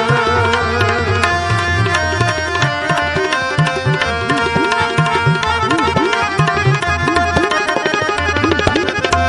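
Sikh kirtan instrumental interlude: tabla playing a dense rhythm, its deep bass strokes bending in pitch, over held melody notes.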